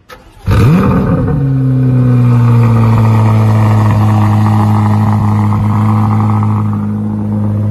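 Chevrolet Corvette Z06's naturally aspirated flat-plane-crank V8 starting up: it catches about half a second in with a brief flare of revs that rises and falls, then settles into a steady idle.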